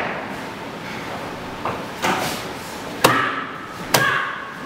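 Sharp knocks and thuds of a staged fight on a wooden stage floor, with a closed umbrella being swung: five sudden impacts, roughly one a second, the first and the last two the loudest.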